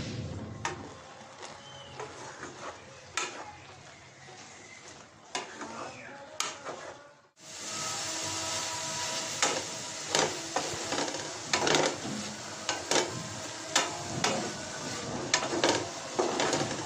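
Wooden spatula stirring jute leaves in a nonstick pan, with sharp knocks and scrapes against the pan. After a break about seven seconds in, a steady sizzle sounds under the knocks as the leaves cook in their own liquid without oil.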